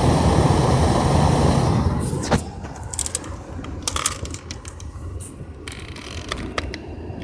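Newly replaced blower motor of a 2004 Pontiac Grand Prix GT running and pushing strong air through the vents, with the engine idling underneath. The rushing noise drops sharply about two seconds in, leaving quieter scattered clicks and knocks.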